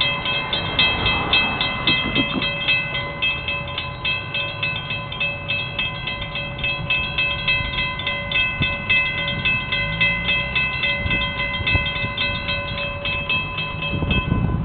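Railroad grade-crossing warning bell ringing in a fast, even rhythm as the crossing gates come down. It stops about a second before the end, while the low sound of the approaching freight train grows.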